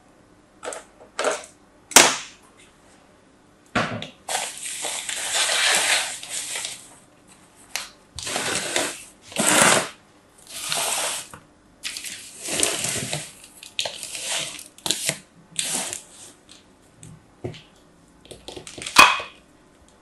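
Plastic toy molds filled with a crumbly sand-like mixture being handled. Sharp taps and clicks come as the molds are picked up and set down, with bursts of scraping and crumbling lasting a second or two as the mixture is pressed and worked in the molds.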